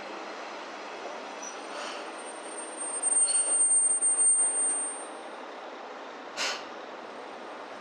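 Train in the station with a high, steady wheel squeal over a steady rumble; the squeal swells and is loudest about three to five seconds in. A short hiss sounds about six seconds in.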